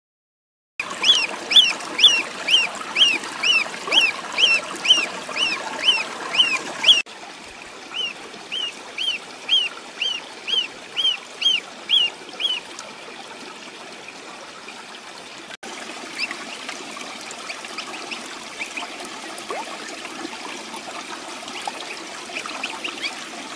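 Ducklings peeping, a steady run of short rising-and-falling peeps at about two a second. The peeps are loudest for the first seven seconds, carry on until about twelve seconds in, then come only faintly and now and then over a steady hiss.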